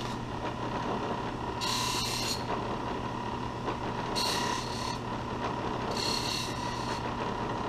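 High-speed electric bench buffer running with a steady hum, and three brief rasps as something is pressed against the spinning buffing wheel, about two, four and a half, and six seconds in.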